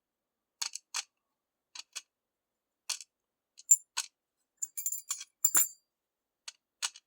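Small metallic clicks and tinks of a pin-tumbler lock being taken apart, with its pins and parts handled by hand. About four to six seconds in, a few small metal pieces drop with a brief ringing.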